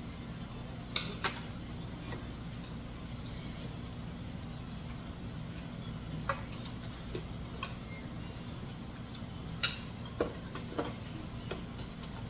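Chopsticks and spoons clicking against ceramic bowls and plates during a meal: a handful of scattered light clicks, the sharpest about ten seconds in, over a steady low hum.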